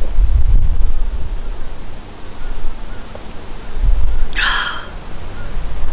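Uneven low rumble of wind buffeting the microphone, with one short, harsh sound about four seconds in.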